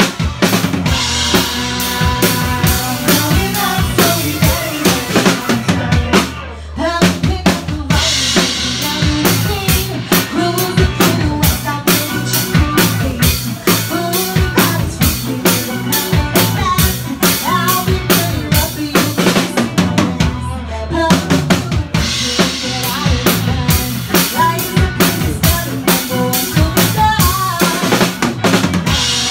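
Live band playing an upbeat pop-dance song: a steady drum-kit beat with bass and guitar. The band cuts out briefly about six and a half seconds in, then comes back in.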